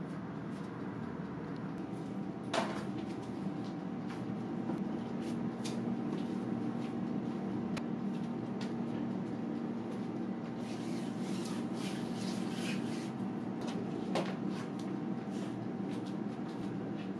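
Fish cake broth simmering in a stainless steel hot pot: scattered small pops and bubbling over a steady low hum, with a denser patch of bubbling a little past the middle.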